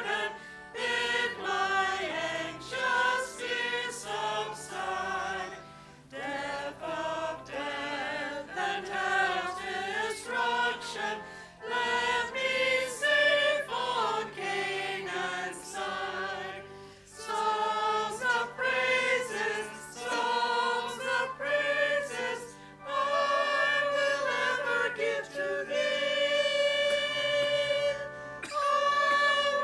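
A group of voices singing a hymn together, with low sustained accompanying notes that change with the tune.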